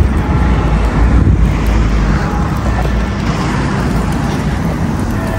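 Outdoor street noise: a steady low rumble with no clear events.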